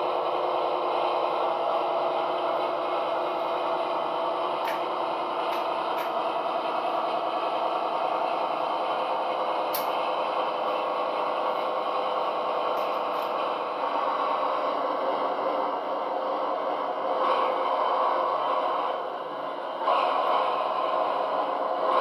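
Gauge 0 model train running along the layout track: a steady mechanical rolling and motor noise, with a few sharp clicks scattered through the middle. The level dips briefly and then steps up again near the end.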